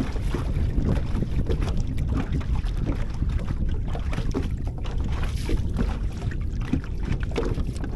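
Wind rumbling on the microphone, with small waves lapping and slapping against a boat's hull.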